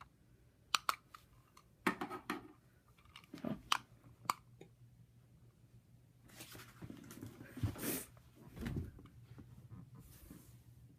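Handling noises as the panic button of a home burglar alarm is worked: scattered clicks and knocks, then a few seconds of rustling over a faint steady hum.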